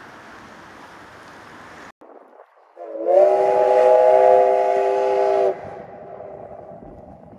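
Steam whistle of the C11 steam locomotive: one long blast of about two and a half seconds with a slight upward slide at its start, trailing off faintly after it stops. Before it, a steady rushing noise.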